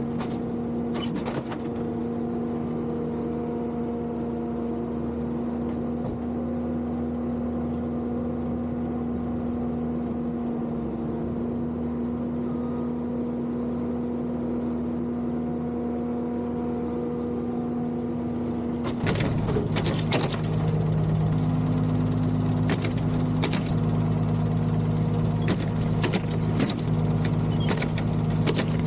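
A diesel engine running steadily at idle. About 19 seconds in, a louder, deeper engine note takes over, with scattered clanks and knocks.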